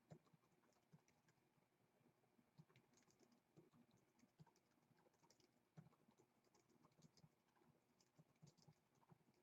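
Near silence with faint, irregular clicks of typing on a computer keyboard while the random-number range is entered.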